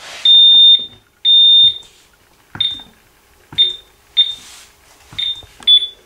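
Honeywell 4110XM alarm keypad beeping: two long high beeps about a second apart, then five short key-press beeps, each with a button click, as a code is keyed in and the system returns to ready.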